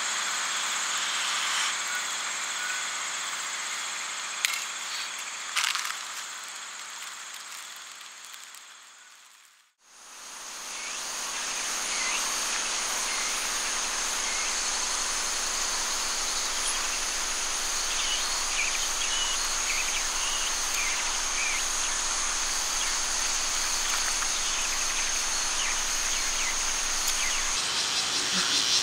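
Campfire-side night ambience: a steady high chirring of insects with a couple of sharp crackles from the fire, fading out about ten seconds in. Daytime ambience then fades in, with a loud steady high insect drone over a constant hiss.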